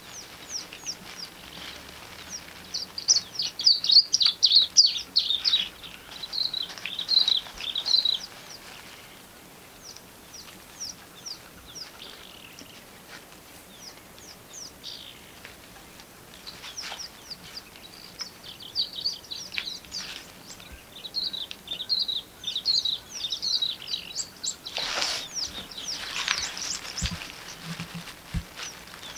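Small birds singing in the bush, with rapid high chirping phrases. The singing comes in two spells, one in the first several seconds and a second from past the middle, with a quieter stretch between. A short, louder, fuller sound stands out a few seconds before the end.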